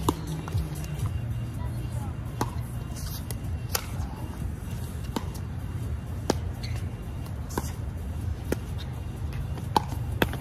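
Pickleball paddles hitting a plastic pickleball in a rally: sharp pocks about once a second. Background music plays underneath.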